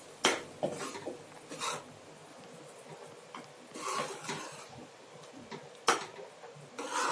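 Metal spoon stirring a thick masala paste in a metal pan, scraping along the pan with a few sharp clinks of the spoon against its sides.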